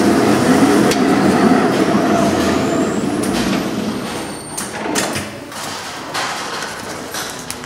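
Ring-type horizontal stretch wrapper running, its ring turning around a stack of tyres as it winds stretch film: a steady mechanical running noise with a faint rising whine in the first few seconds. The noise fades gradually from about halfway, with a few sharp clicks and knocks in the last seconds.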